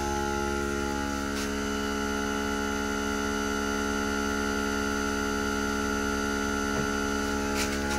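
Xiaomi 70mai portable 12-volt car air compressor running steadily, its pump motor humming as it inflates a collapsible space-saver spare tyre.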